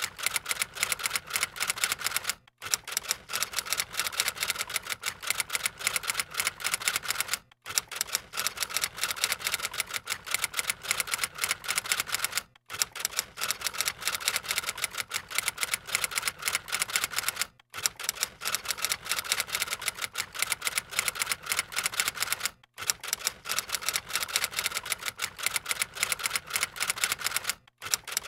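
Typewriter sound effect: fast, continuous keystroke clicks, broken by a short pause about every five seconds.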